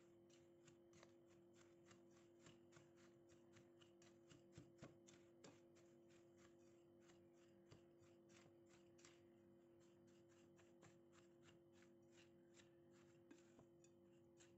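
Faint, rapid scraping and rustling of a silicone spatula stirring buttery crushed-biscuit crumbs in a ceramic bowl, several short strokes a second, over a faint steady low hum.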